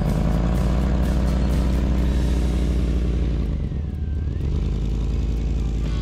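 Toyota SUV's engine running under load as it drives out through deep snow, steady with a brief dip about halfway through before picking up again.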